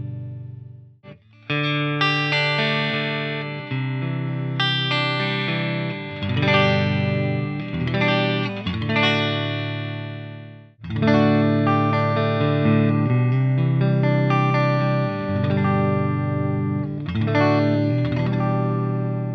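Greco SE600 Stratocaster-style electric guitar played through a Laney VH100R valve amp: strummed chords and picked notes left to ring, breaking off briefly about a second in and again near eleven seconds.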